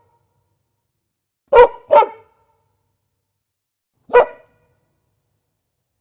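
A dog barking: two quick barks about one and a half seconds in, then a single bark near the four-second mark, with silence between them.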